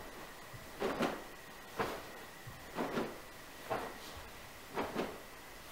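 A man in a karate gi doing sit-ups with two punches forward at the top: short swishes and snaps of the uniform fabric and body moving on the mat, recurring about once a second, the punches heard as quick pairs of snaps.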